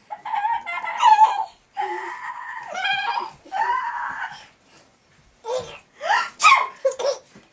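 A toddler laughing and squealing in a very high voice: two long drawn-out squeals, then a run of short sharp bursts of laughter.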